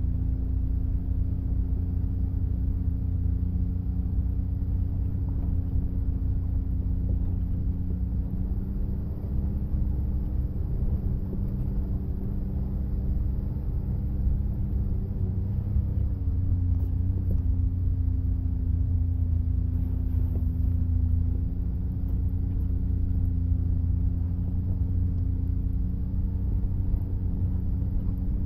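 Side-by-side UTV engine running at a steady, moderate speed while driving, with a heavy low rumble.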